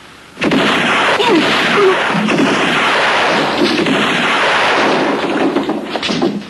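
Gunfire: a sudden loud burst about half a second in, then dense, continuous noise for about six seconds.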